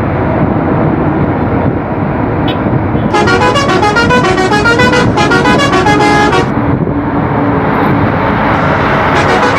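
A bus's multi-tone horn plays a tune of stepping notes for about three and a half seconds, starting about three seconds in, over the steady noise of the bus engine and traffic.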